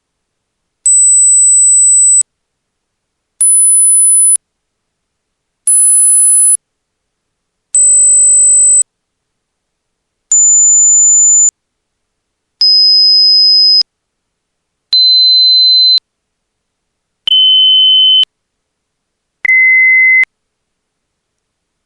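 Hearing test software playing pure test tones: nine separate steady beeps, each about a second long with short gaps. They start very high, go higher for two tones, then step down in pitch one after another to a much lower tone at the end.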